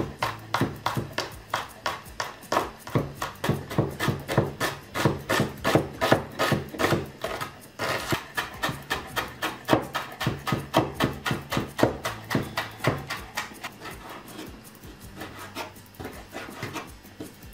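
Chef's knife chopping garlic, onion and then bacon on a wooden cutting board, in quick strokes about four a second that thin out and get quieter near the end.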